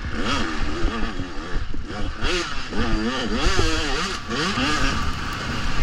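Off-road dirt bike engine revving hard, its pitch rising and falling quickly and repeatedly as the throttle is worked over a rough, bumpy track, with a low rumble of wind and bumps on the helmet camera.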